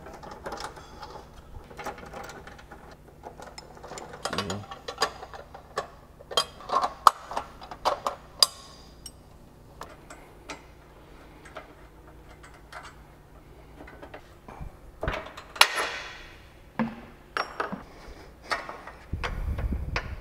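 Hand ratchet with an 18 mm socket clicking in irregular runs, with metal clinks and knocks of tools and parts, as the nuts holding a rear bumper are backed off. Two sharper knocks stand out, about seven and fifteen seconds in, and a short low rumble comes near the end.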